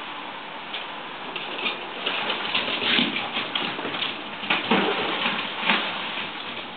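Golden retriever puppies splashing and pawing about in a shallow plastic wading pool of water: an irregular run of splashes, with a few louder ones in the second half.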